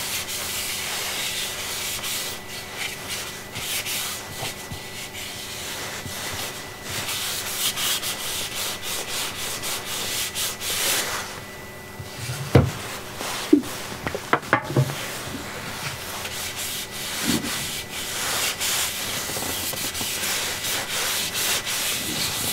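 Linseed oil being rubbed by hand into the wide areas of a turned cherry bowl: continuous rubbing of the applicator on the wood, with a few light knocks about halfway through.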